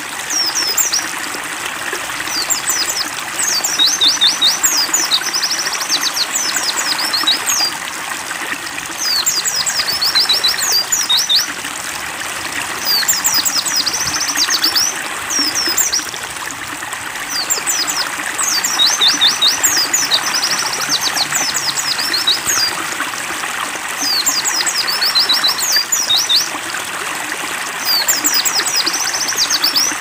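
Steady running water of a stream trickling and splashing, with a white-eye (pleci) singing short phrases of rapid, high twittering notes every two to three seconds.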